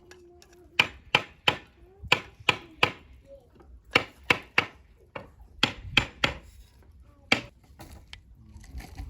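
Knife chopping food on a cutting board: sharp strokes, mostly in quick sets of three, with short pauses between the sets.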